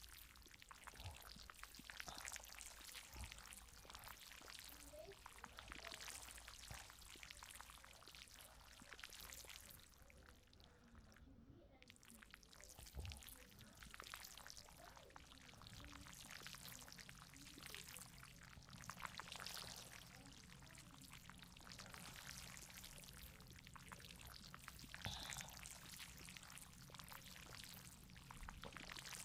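Faint rain sound: a patter of drops and hiss that swells and fades every few seconds, over a low steady hum.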